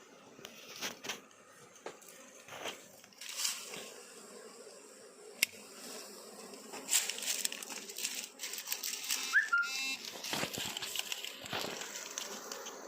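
Scattered rustling and crackling clicks as the freshly removed wild honeybee comb and its surroundings are handled, with one short rising whistle that levels off about nine and a half seconds in.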